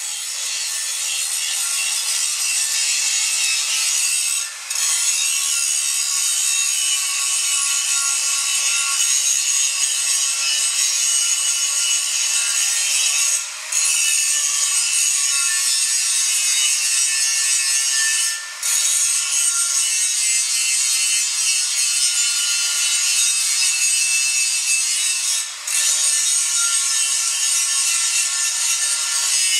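Angle grinder's abrasive disc grinding along a steel weld seam: a steady, high-pitched grinding noise that fades in over the first couple of seconds and dips briefly four times. It is grinding off the excess weld penetration on the back of a thin-plate MAG weld, ahead of back-gouging.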